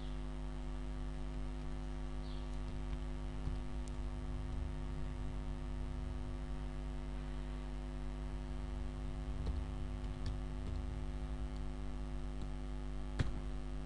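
Steady electrical mains hum with many evenly spaced overtones, a constant drone picked up by the recording. A few faint clicks from a computer keyboard are heard over it, the sharpest near the end.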